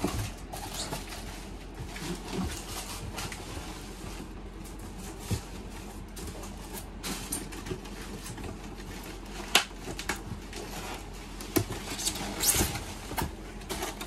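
Cardboard box and packing being handled: scattered rustling, scraping and light knocks, with a few sharper taps and clicks in the second half, over a steady low hum.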